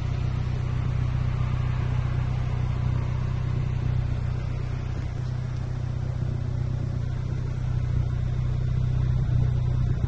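VW Golf Mk7.5 1.5 TSI turbocharged four-cylinder petrol engine idling steadily through a custom cat-back exhaust with Akrapovic-look stainless steel tips, giving a low, even exhaust note.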